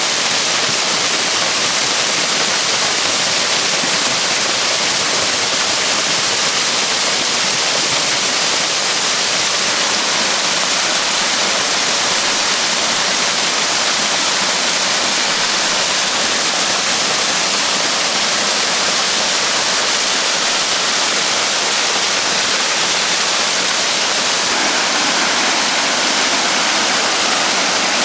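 Small Highland waterfall running full after heavy rain, a steady, even rush of water pouring into a loch, heavy in the hiss.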